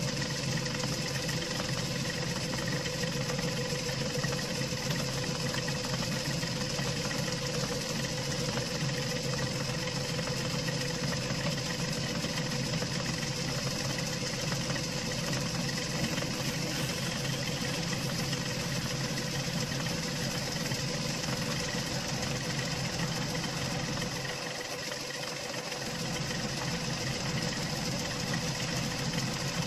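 Metal lathe running steadily in back gear, motor and gear train humming with a steady whine, during drilling or milling on the lathe. The low rumble briefly drops off for a second or two near the end.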